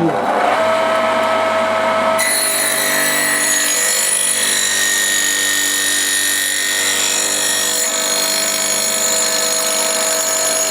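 Small homemade saw bench with a 550 W, 3000 rpm motor on a capacitor connection, its fine-toothed 3.5 mm metal-cutting disc mill serving as a saw blade, sawing a shallow groove into a wooden block. The sound turns brighter and harsher about two seconds in, then runs steady.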